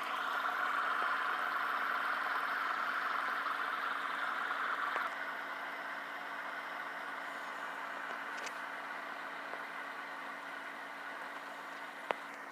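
Steady hiss of CO2 gas escaping from the Gamo P-430 pistol's cartridge. It eases down about five seconds in, then fades slowly, with a sharp click near the end.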